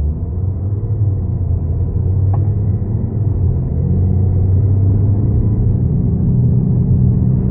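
Audi A6 (4G) TDI quattro on the move with a low, steady drone from a defective wheel bearing, growing louder over the first couple of seconds.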